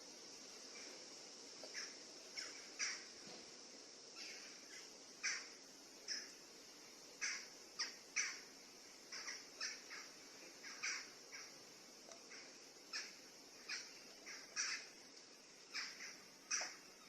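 Forest birds calling in the trees: short, sharp calls repeated at uneven intervals, one or two a second, over a steady high hiss.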